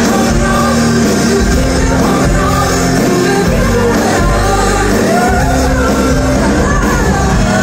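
Live pop song in a large hall: a woman singing over grand piano, with electric guitar and bass, loud and steady.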